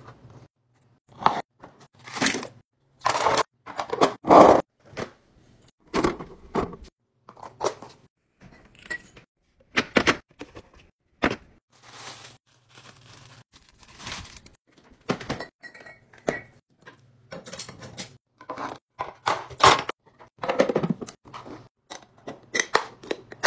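Hands handling kitchen things on a countertop: an irregular run of short knocks, clicks and plastic rustles from food-storage containers, lids and packaging, loudest about three to four seconds in.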